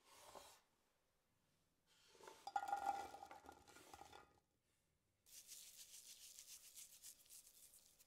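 Halved Brussels sprouts scraped off a wooden chopping board tumble into a ceramic baking dish with a clatter and a ringing clink of the dish, about two seconds in. From about five seconds in, salt is sprinkled over the sprouts with a fine crackling hiss that lasts about three seconds.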